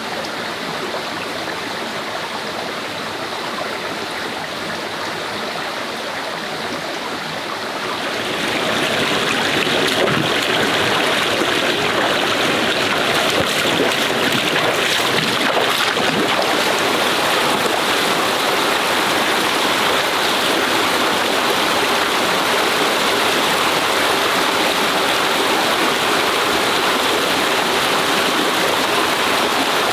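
Stream water flowing, a steady rush that grows louder about eight seconds in and then holds steady.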